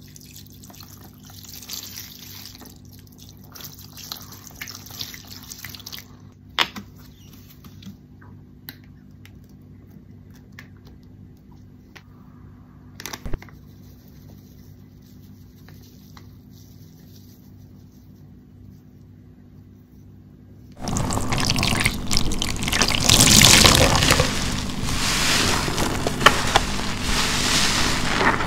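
Soap-soaked sponge squeezed by hand, with wet, crackling squelches of foam and liquid. Faint crackles and a few clicks come first; about 21 seconds in, the squeezing turns much louder and denser.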